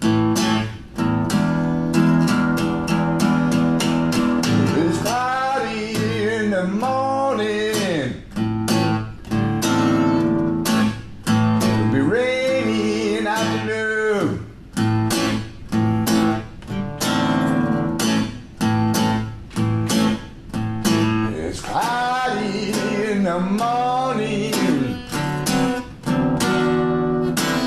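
Blues song played on strummed acoustic guitar, with a singing voice coming in several times over the steady strumming.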